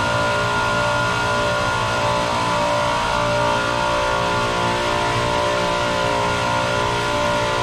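Steady drone of running chiller-plant machinery: a constant hum made of several steady tones over a broad machine noise, with no breaks or changes.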